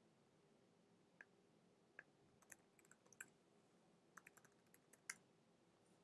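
Faint, irregular computer keyboard clicks: a few single keystrokes, then short runs of typing as a username and password are entered.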